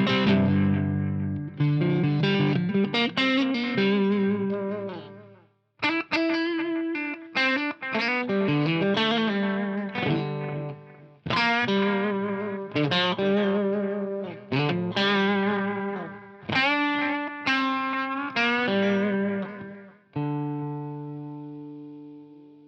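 Electric guitar played through a Donner Yellow Fall analog delay pedal: picked phrases of notes and chords with short breaks between them. Near the end a last chord is left to ring and fade out.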